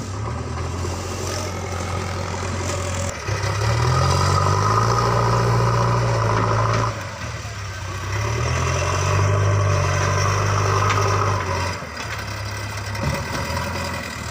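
Diesel engine of a JCB 3DX backhoe loader revving up twice under hydraulic working load and dropping back to idle in between, each rise holding for about four seconds.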